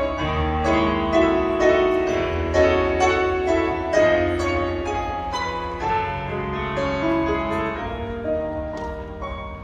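Instrumental introduction to a song played on a keyboard: a melody over held chords, growing gradually quieter toward the end.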